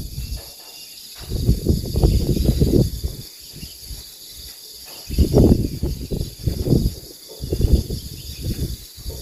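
Insects buzzing steadily in the surrounding vegetation, overlaid by irregular low rumbling gusts of wind buffeting the microphone every second or two.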